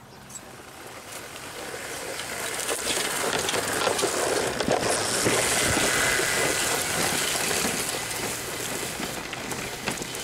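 Homemade electric rail speeder rolling along rough, disused track, its wheels and frame rattling and knocking over the bumps and rail joints. The noise grows as the cart comes up and passes about halfway through, then fades as it rolls away.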